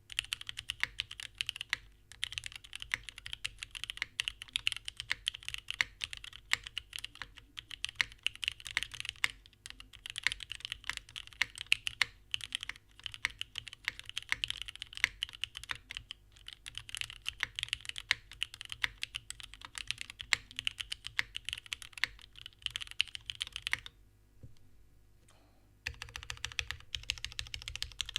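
Fast, continuous typing on a gasket-mounted Singa Kohaku R2 mechanical keyboard with an aluminium plate and vintage Cherry MX Black linear switches, unlubricated but filmed and spring-swapped, with Cherry-profile keycaps. The typing pauses briefly a few times and stops for about two seconds near the end.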